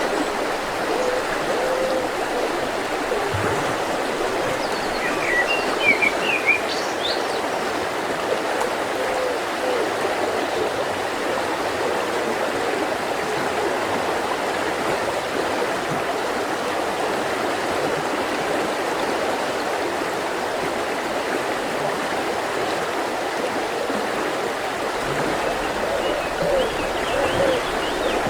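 Mountain river flowing steadily over rocks. A small bird gives a few quick chirps about five seconds in and again near the end.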